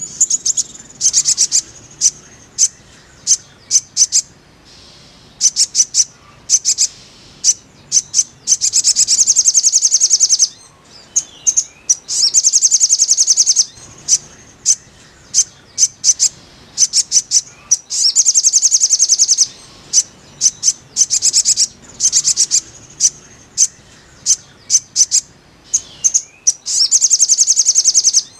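Little spiderhunter (sogok ontong) calling: a series of sharp high chips, broken four times by fast rattling trills that last one to two seconds each.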